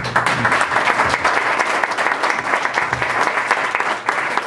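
A small audience applauding, many hands clapping at once.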